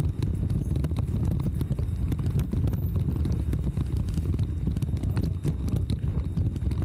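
Ride noise from a bicycle-mounted camera: a steady low rumble with quick, irregular clicks and rattles as the bike rolls over paving stones, with the engines of tractors and lorries alongside.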